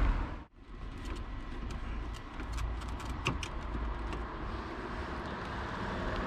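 Steady background of distant road traffic with a low rumble, with a few light clicks of a camper's plastic wheel-arch liner being handled.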